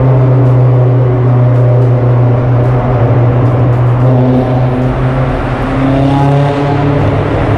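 Honda S2000's inline-four engine and exhaust heard from the open-top cabin in a road tunnel, running at a steady drone under load. It eases off slightly midway, then climbs in pitch again near the end as the throttle opens.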